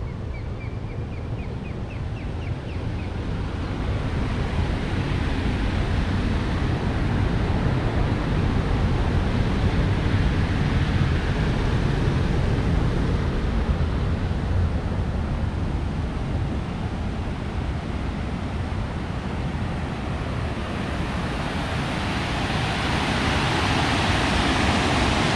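Steady rush of fast-flowing water, likely rapids, mixed with wind buffeting the microphone; the water's hiss grows louder and brighter near the end.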